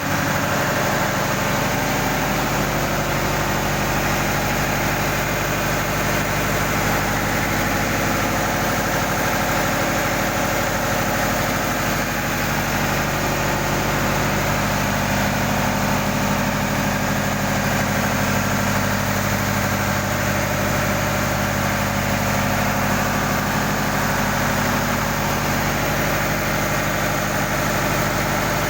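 Old engine running steadily at one even speed, with no change in pitch or loudness.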